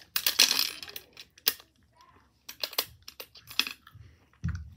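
A toy coin-operated gumball machine being worked: a burst of rattling, then scattered clicks and clinks of pennies and plastic parts, with a few low knocks near the end.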